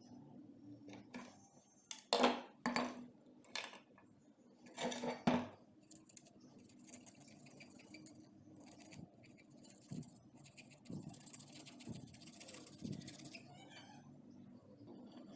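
A flat steel axe-head blank handled on a wooden bench, giving several clinks and knocks in the first half. From about six seconds in, a marker scratches over the steel for several seconds, then stops.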